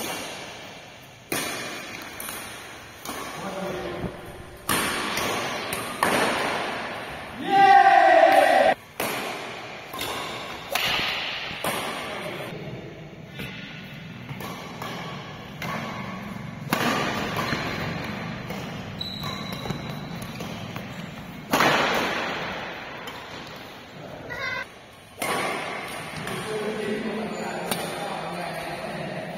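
Badminton rally: rackets striking the shuttlecock in sharp hits at irregular intervals, each trailing off in the hall's echo, with players' voices calling between shots.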